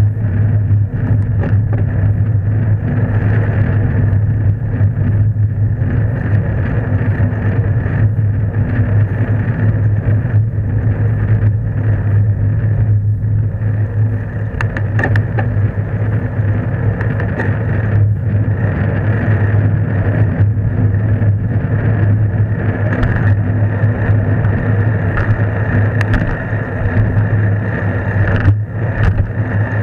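Steady low rumble and hum of a bicycle ridden along a road, picked up through a bike-mounted camera, with scattered small knocks from bumps in the road surface.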